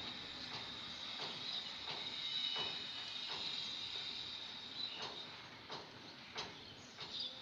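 Faint, regular ticking, roughly one tick every two-thirds of a second, over a steady high-pitched hiss.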